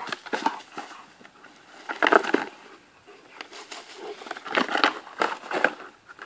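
A black plastic flower pot rattling, knocking and scraping against the ground as a dog runs with its head inside it and then shoves it along with its muzzle. It comes in short bursts of crackling clatter, the loudest about two seconds in and again from about four and a half to nearly six seconds.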